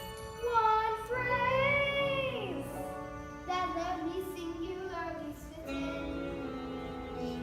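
Children's musical-theatre cast singing a show tune over musical accompaniment. About two and a half seconds in, a long held note bends up and then slides down.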